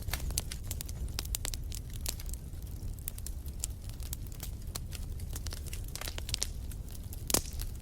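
Wood fire crackling in a fireplace: irregular snaps and pops over a steady low rumble, with one louder pop near the end.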